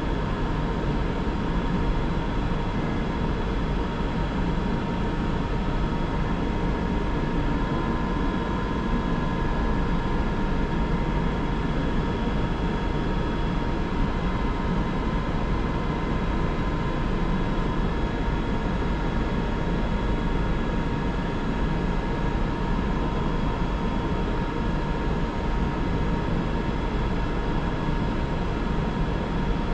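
London Underground Piccadilly line train (1973 stock) standing at a platform, its onboard equipment running with a steady low hum and a thin constant whine.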